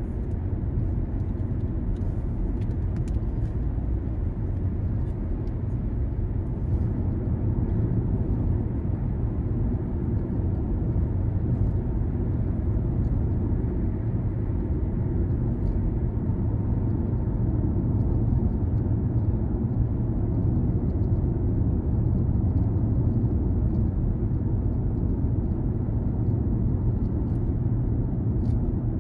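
A car driving: a steady low rumble of engine and road noise.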